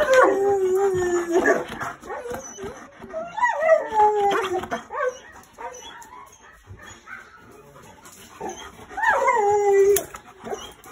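A dog howling in three drawn-out calls, about a second or more each, every one starting higher and sliding down to a held note, with short quieter whines between them. It is the excited demanding howl of a dog that wants to go out.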